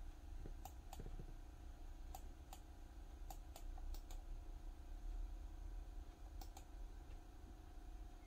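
About ten faint, sharp clicks at a computer, several coming in quick pairs, over a steady low hum.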